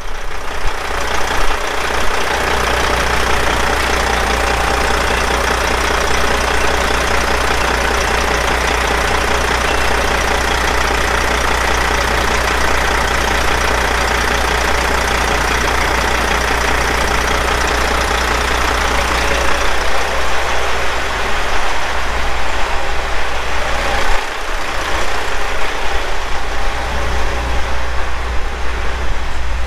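Truck engine idling with a steady rush of air from the running AC blower while the air conditioning is being charged. It becomes more uneven in the last third, with a brief dip.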